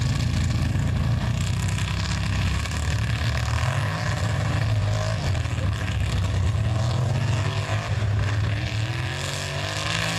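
Engine of a lifted 1940s Chevy mega truck running loud in a mud bog: a steady low drone whose pitch rises a little a few seconds in and settles back.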